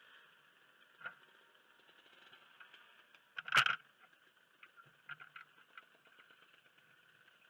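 Faint, muffled background broken by a sharp knock about three and a half seconds in, a lighter knock about a second in, and a few small ticks around five seconds.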